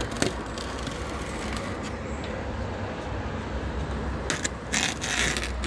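A blade cutting a slot in the inner door-card piece of a Fiat 500 door. There is a click at the start, then short scratchy cutting strokes about four to five and a half seconds in.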